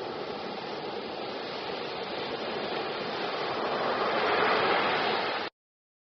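Ocean surf breaking on a beach: a steady rush of churning foam that swells as a wave breaks about four seconds in, then cuts off abruptly.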